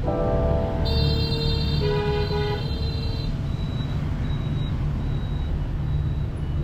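Several vehicle horns honking at once at different pitches, overlapping for about the first three seconds, over the steady low rumble of city street traffic.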